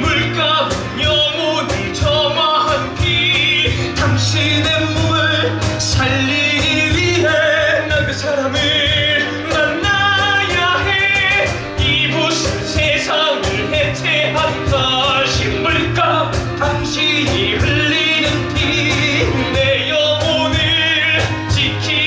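Musical-theatre song performed live: male voices singing held, wavering notes over instrumental accompaniment.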